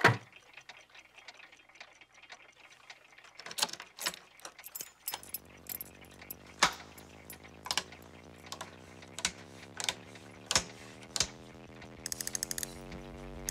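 A skateboard rolls into a metal equipment case with a knock. Then toggle switches on a large amplifier's driver panel are flipped one after another with sharp clicks, and from about five seconds in the amplifier's electrical hum sets in and grows fuller as it powers up. Near the end comes a quick run of ticks as a dial is turned.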